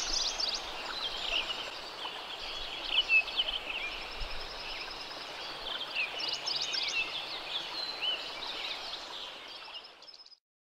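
Songbirds chirping and trilling over a steady background hiss, with a quick run of repeated high notes twice; the sound fades out just before the end.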